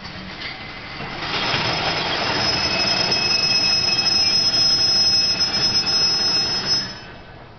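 Steady whine of electric train equipment. It swells about a second in, carries high, even tones, and cuts off abruptly near the end.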